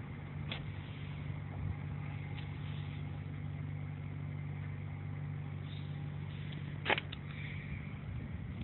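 A steady low engine hum, as of a motor vehicle idling, fading out about seven and a half seconds in. A sharp click is heard about seven seconds in.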